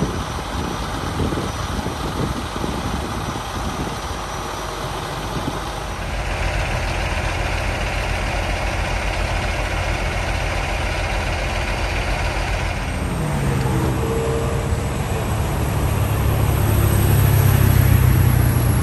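Heavy tractor-trailer diesel engine idling with a steady low note that steps up in pitch a little after the middle and then holds. Before it, a rumble of outdoor traffic and wind.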